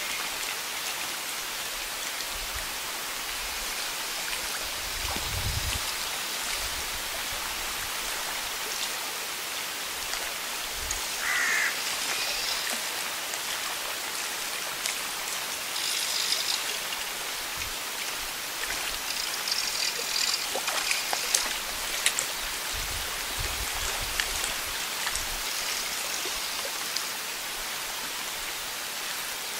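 Steady outdoor hiss of wind and small waves lapping on a lakeshore. A few low gusts buffet the microphone, about five seconds in and again past twenty seconds.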